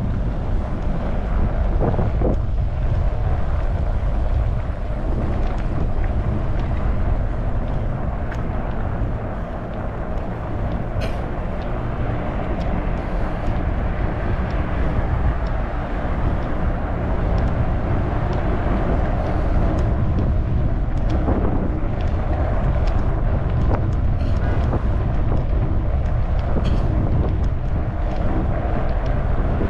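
Steady wind rush on the microphone and rolling tyre noise from a Trek Farley 9.6 fat bike being ridden, with a faint hum and a few small clicks.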